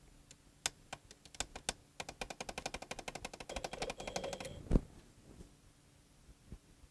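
Push buttons on an electronic temperature controller being pressed to lower the setpoint. There are a few separate clicks, then a fast, even run of clicks for about two and a half seconds, then one louder click.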